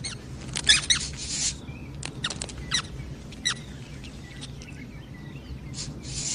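High-pitched squeaking cries of Dedenne, the cartoon mouse Pokémon: a few short chirps in the first half, some in quick pairs, over faint background ambience.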